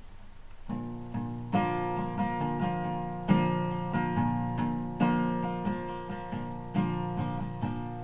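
Acoustic guitar playing a song's opening: ringing chords with a firmer strum about every second and a half to two seconds and lighter picked notes between.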